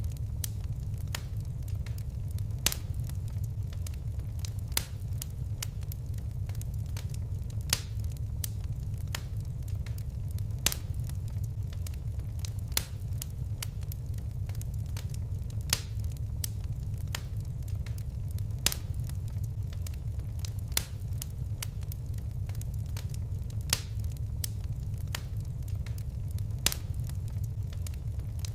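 Fire crackling: a steady low rumble of flames with sharp, irregular pops and snaps, a few louder ones standing out every few seconds.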